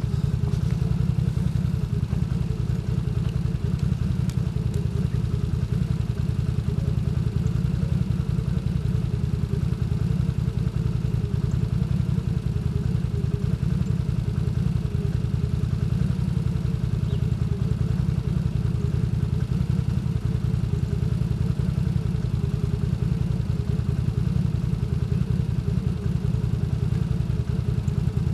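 Can-Am Renegade ATV engine idling steadily through its custom-built exhaust pipe, a constant low pulsing rumble.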